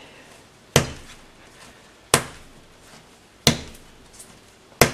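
Bread dough slapped down hard onto a worktop by hand, four sharp slaps evenly spaced about a second and a half apart. This is the slap-and-fold stage of hand kneading, which works the yeast in and breaks up lumps.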